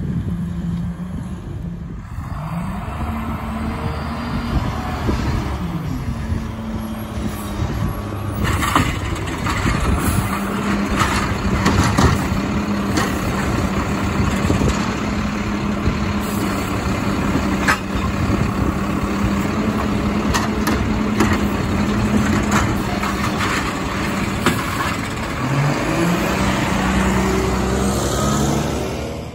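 Mack automated side-loader garbage truck's diesel engine running and revving, its pitch rising and falling as the hydraulic arm works. In the middle, repeated knocks and clatters as the arm lifts and shakes out a recycling cart into the hopper.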